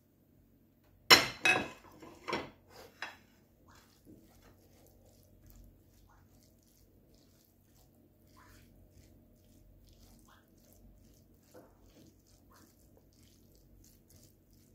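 Silicone spatula stirring rice in a non-stick frying pan. A cluster of loud knocks comes about a second in, then soft scraping and light ticks as the rice is turned over.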